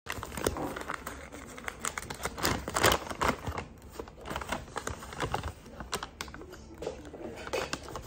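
A paper bag crinkling and rustling as it is handled, in a run of irregular short crackles.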